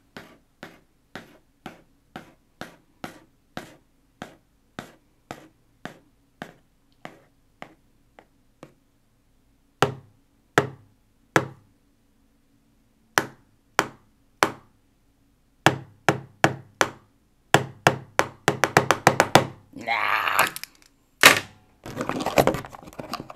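Light taps of a plastic stylus on a small cardboard box. First a steady run of about one and a half taps a second that fades out, then groups of three louder taps, then taps quickening into a rapid flurry. Near the end come cardboard scraping and rustling as the box is handled, with one sharp knock.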